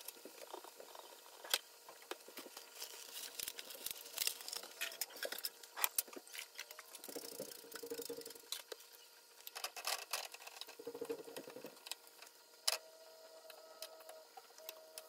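Slices of plantain shallow-frying in oil in a nonstick pan on a gas burner: a continuous crackle of sizzling with scattered sharper pops and clicks, and a fork now and then knocking against the pan.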